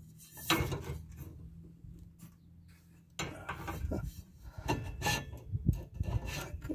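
Metal exhaust pipe parts being handled and fitted together, with irregular scraping and knocking of metal on metal. There is one scrape about half a second in, then a lull, then a run of scrapes and knocks from about three seconds in.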